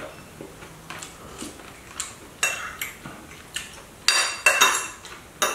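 Metal spoon and fork clinking and scraping against a ceramic bowl while scooping food: scattered light clinks, then a cluster of louder ringing clinks about four seconds in and one more near the end.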